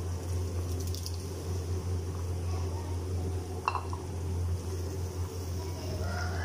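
Tomato puree poured into a simmering curry in an aluminium karahi, over a steady low hum and hiss, with a single clink about three and a half seconds in. A rooster starts to crow near the end.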